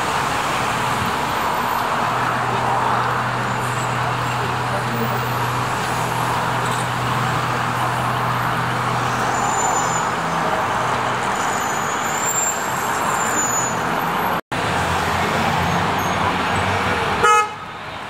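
Busy city street traffic: steady noise of cars and a crowd, with a low steady hum through the first half and a short car horn toot near the end.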